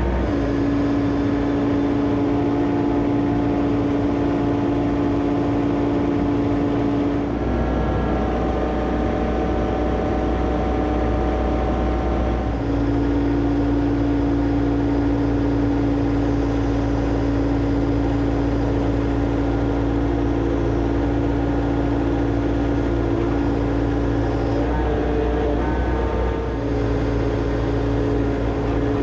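John Deere excavator's diesel engine running steadily under working load. Its note shifts a few times as the machine works.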